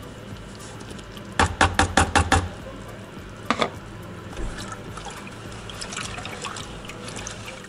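A hand stirring and sloshing warm water in a plastic bucket to dissolve dry wine yeast. About a second and a half in there is a quick run of six sharp knocks, and a single knock about two seconds later.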